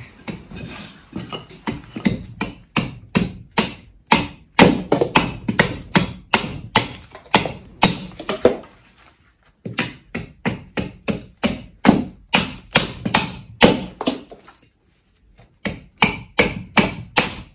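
Gränsfors Bruks Small Forest Axe carving a stick of green wood stood on a chopping block: a quick run of short chopping strikes, about two a second, with a brief pause about three-quarters of the way through.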